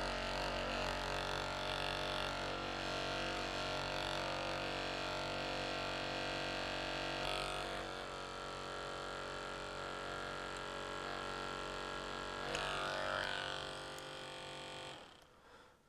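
Roffie RM10 percussive massage gun running: a steady motor buzz with a drone of several even tones, shifting slightly about halfway through and again near the end. It stops about a second before the end. Not noisy, but not dead quiet.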